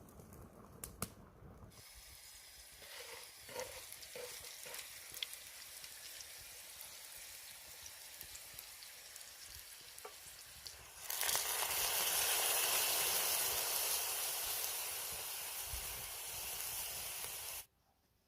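Food frying and sizzling, with a few clicks and knocks in the first two seconds. The sizzle gets much louder about eleven seconds in, then cuts off abruptly near the end.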